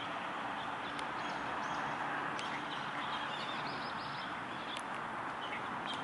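Steady outdoor background hiss with faint, short chirps of small birds scattered through it, most of them around the middle.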